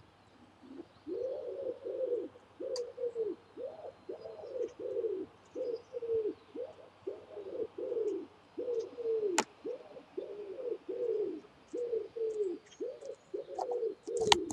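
A bird's low, rounded call note, repeated steadily about twice a second, with a few faint high chirps above it. A couple of sharp clicks break in, the loudest near the end.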